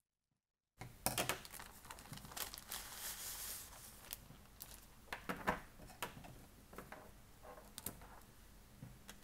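Plastic bag crinkling and rustling as a coiled cable is pulled out of its packaging, with scattered clicks and knocks of the cable being handled. The sound starts suddenly about a second in.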